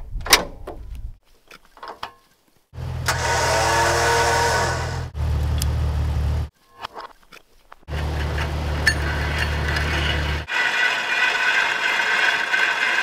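Electric winch motor of a Warn XD9000 winch being tried out, running in several short runs of steady hum and whine that start and stop sharply, the first with a rising whine. About ten seconds in, the low hum stops and a steady higher-pitched sound carries on.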